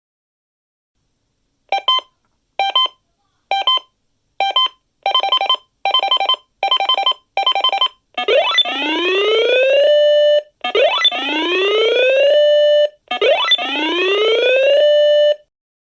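Synthesized emergency alert tones: four short beeps about a second apart, then four longer beeps in quicker succession, then three loud whooping sweeps that rise in pitch and level off into a held tone. This is the attention signal that opens an emergency alert broadcast.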